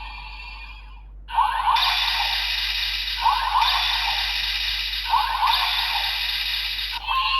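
Electronic sound effect from a DX GUTS Sparklence transformation toy, played through its small built-in speaker. After a quieter first second, a sustained hiss-like effect starts and swells again roughly every two seconds, then breaks off near the end into a different effect.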